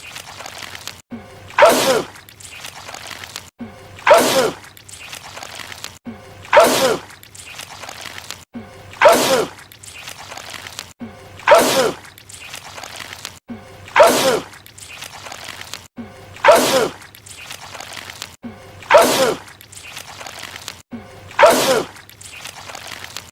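A man's loud sneeze, the same one repeated nine times at even intervals of about two and a half seconds: one sneeze looped over and over. Each is a sharp burst whose voice drops in pitch.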